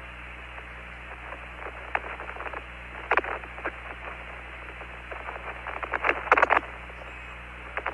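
Apollo 15 lunar-surface air-to-ground radio channel left open with no one talking: steady radio hiss over a low hum, broken by short crackles and pops, the loudest cluster about six seconds in.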